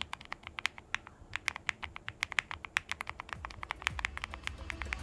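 Fast typing on a low-profile mechanical keyboard with Kailh POM Gold Red linear switches: a quick, uneven patter of crisp key clicks, several strokes a second. A low rumble builds under it near the end.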